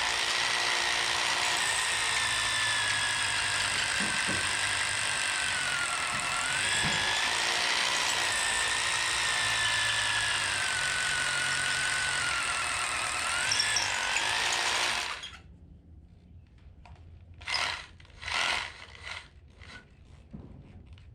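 Hammer drill boring an anchor hole into a concrete floor, its motor whine sagging and recovering in pitch as the load changes. It stops abruptly about 15 seconds in, followed by a few light knocks.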